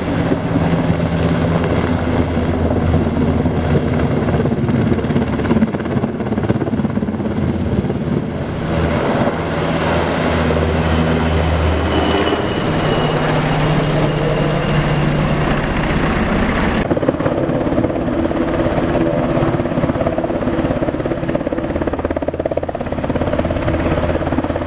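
Airbus Sea Lion (NH90-family) twin-turboshaft helicopter flying close by: a loud, steady mix of rotor-blade beat and turbine noise. About two-thirds of the way through the sound changes abruptly, as the helicopter is heard low and near over a runway.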